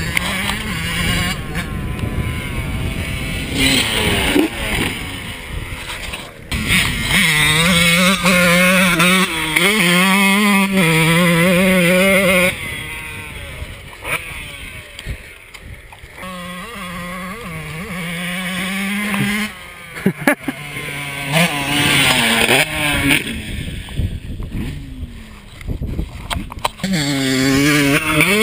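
Suzuki RM125 two-stroke dirt bike engine revving up and down as the bike rides the track. It is loudest for about five seconds in the middle as it passes close, then fades into the distance, and it builds again near the end as the bike comes back.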